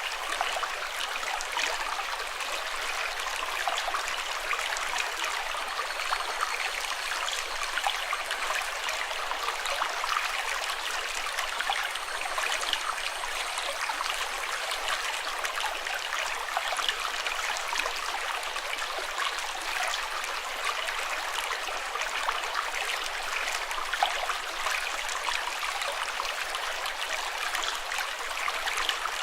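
Running water flowing steadily, with many small splashes and no change in level.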